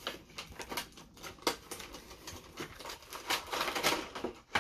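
Cardboard and plastic packaging being handled: an irregular run of rustles, scrapes and light clicks as a box is slid out of its sleeve and a clear plastic tray is pulled out, busiest about three seconds in.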